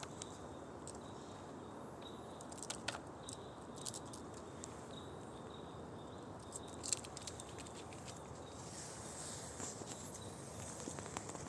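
Light clicks, taps and scratches of a squirrel moving about in a feeder, scattered irregularly, a few sharper taps about three and seven seconds in, over a steady faint outdoor hiss.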